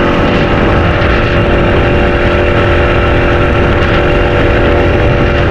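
A fishing boat's motor running steadily under way, with heavy wind buffeting the microphone.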